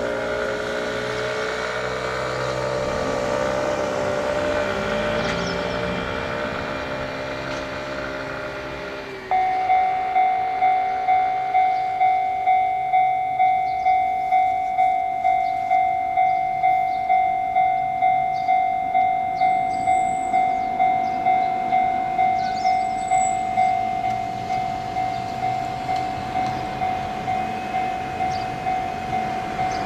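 Japanese level-crossing warning bell starting abruptly about nine seconds in and ringing steadily at about two strikes a second, as the crossing signals an approaching train. It drops somewhat in loudness about two-thirds of the way through. Before the bell starts there is a steady hum made of several tones.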